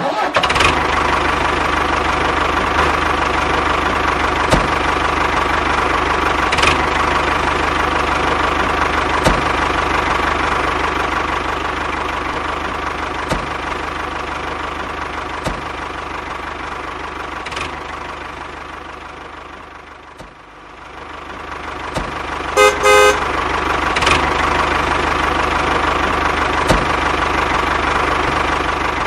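A miniature DIY tractor's motor running steadily with a whine and a faint tick every couple of seconds. It fades down about twenty seconds in and picks up again, and a horn gives two quick toots shortly after.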